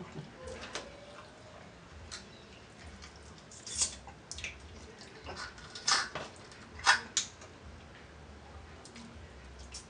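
Snow crab legs being cracked and picked apart by hand: a handful of sharp shell cracks and snaps, loudest about four, six and seven seconds in, between small wet clicks of eating.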